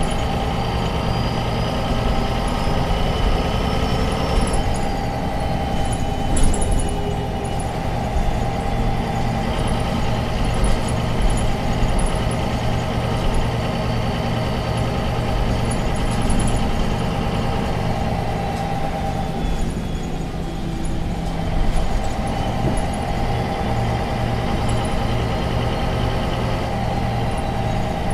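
MAN NG 263 articulated city bus running under way, its six-cylinder diesel engine droning with a thin whine that rises in pitch as it pulls. The whine drops away about four to five seconds in. The sound eases and dips about three-quarters of the way through, then builds again as the bus pulls once more.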